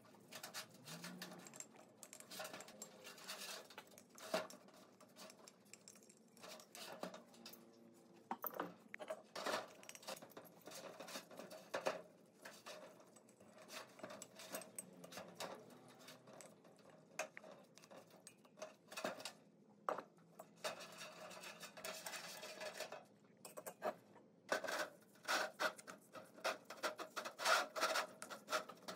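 Hand work on metal parts: irregular clinks, light knocks and scraping or rubbing strokes, with a denser run of clinks over the last few seconds.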